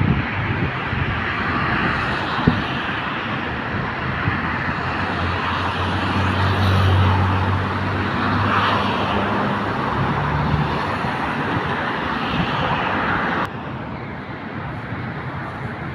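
Outdoor traffic noise, a steady rumble and hiss with a vehicle engine humming most strongly in the middle. The noise drops suddenly near the end.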